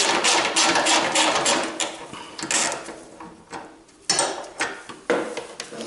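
Socket ratchet clicking as it undoes a car bonnet's hinge bolt, the pawl ticking in a fast run of clicks. The clicking eases off about three seconds in, then comes back in a few short bursts near the end.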